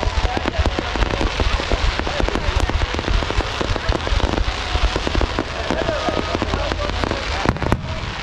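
A rapid-fire barrage of aerial fireworks: many shells bursting in quick succession, a dense, continuous run of bangs and crackling.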